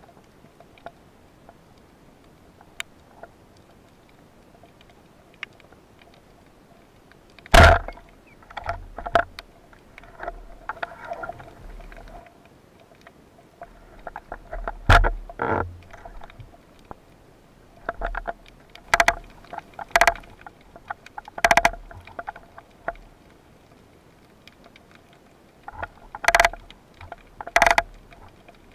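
Sharp knocks and clicks, heard underwater, from a speargun being handled with its mounted camera, coming irregularly over a faint steady hiss after several quiet seconds. The loudest is a heavy knock about seven and a half seconds in.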